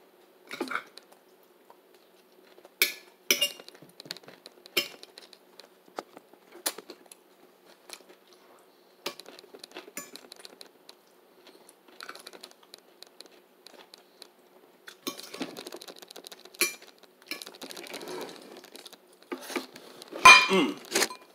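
Someone eating stuffed bell peppers: a fork clicking and scraping against a plate every second or two, with chewing between. There is a louder clatter near the end.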